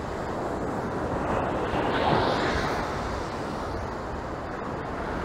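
Ocean surf breaking and washing up a sandy beach, a steady rushing noise with one wave swelling about two seconds in.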